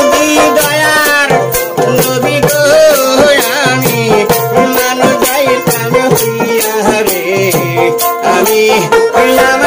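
A man singing a Bengali baul jari song to his own plucked dotara, with sharp percussion strokes keeping the beat.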